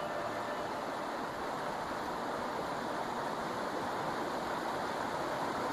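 Steady rush of shallow flowing water.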